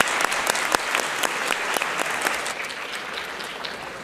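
Audience applauding, the clapping thinning and fading away toward the end.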